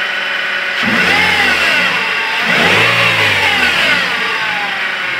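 Toyota Altis gasoline engine revved up from idle twice, its pitch rising and falling each time, during a charging-system check that finds the alternator charging properly.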